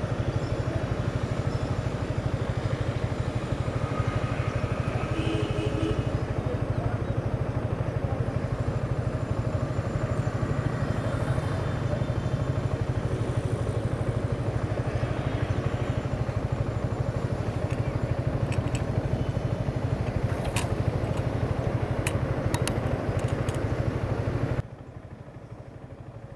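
Motorcycle engine running steadily during a ride, with a constant low pulsing and road and wind noise, cutting off suddenly near the end.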